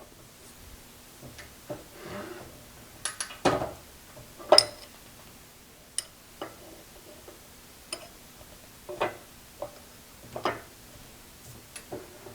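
Scattered light metallic clicks and clinks of small tools and parts being handled, about a dozen at irregular intervals, some with a brief ring; the loudest comes about four and a half seconds in.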